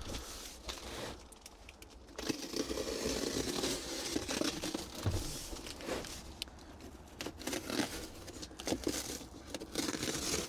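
Cardboard shipping box being cut open with a knife and unpacked: scraping, tearing and crinkling of cardboard and packing material. This is an irregular rustle that starts about two seconds in, with scattered small clicks.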